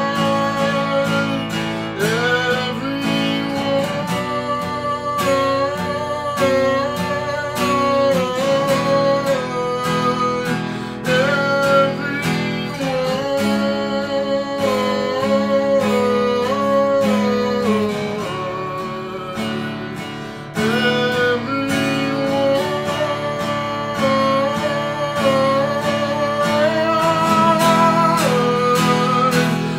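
A man singing with a strummed acoustic guitar, the voice carrying a melody over steady chords.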